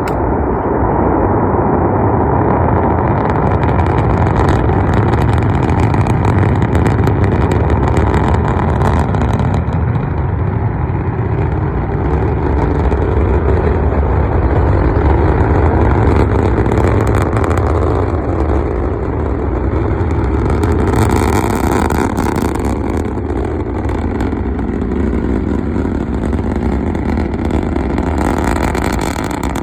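Starship SN9's Raptor rocket engines firing in flight: a loud, steady rumble with a harsher crackle that swells about two thirds of the way in and again near the end.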